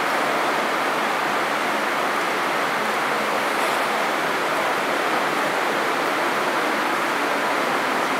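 Steady, even din of a large crowd in a big indoor hall, with no distinct voices, music or separate events standing out.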